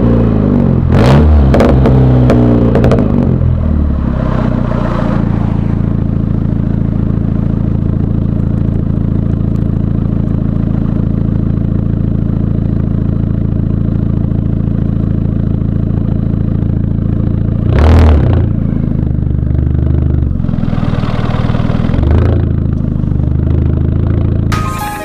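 Straight-piped 2.0 L turbocharged four-cylinder engine of a 2010 Volkswagen CC, heard while driving: its note drops off with a crackle about a second in, then holds a steady drone while cruising, with another sharp crackle around eighteen seconds in and a brief change in the note a few seconds later.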